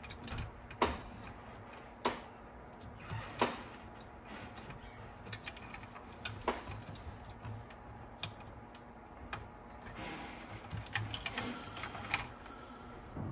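Scattered small clicks and taps of hands working inside a cassette deck, fitting its cable connectors back into place. A quicker run of lighter ticks comes about ten to twelve seconds in.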